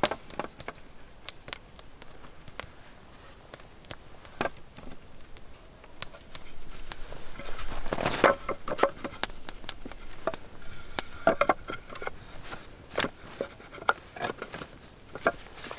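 Split wooden slats knocking and clattering as they are laid onto the pole frame of a handmade bushcraft chair, with scattered small clicks between. The loudest run of wooden knocks comes about eight seconds in.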